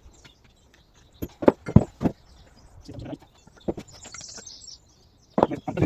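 Sharp metallic knocks and clanks of hand tools and parts being handled on a vehicle axle, a cluster about a second in and another near the end.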